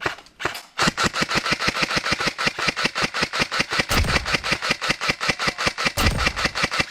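Airsoft gun firing a fast, even string of shots, about eight a second, starting about a second in. Two heavier low thumps come near the middle and again near the end.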